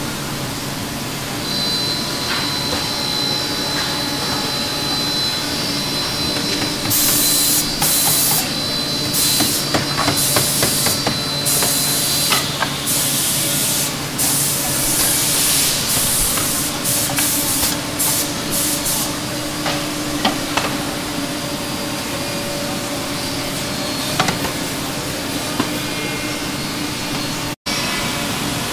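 Guitar-neck factory floor: machinery hums steadily under a high whine that stops a little before the middle. Through the middle comes a run of loud short hissing blasts, like air jets, with scattered knocks.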